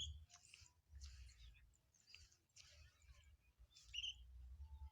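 A lovebird chirping faintly: a few short high chirps, with soft rustling noise in between.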